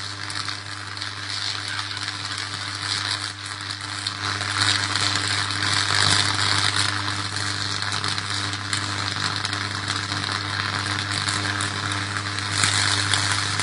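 Power line arcing and burning at the top of a utility pole: continuous crackling and sizzling over a steady low electrical buzz, louder from about four seconds in.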